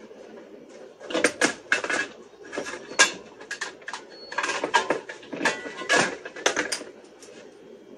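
Sheet-metal box parts and hand tools handled on a hard tabletop: a run of sharp metallic knocks and clicks as the box and its cover are moved and set down and pliers and a screwdriver are picked up, starting about a second in and stopping near the end.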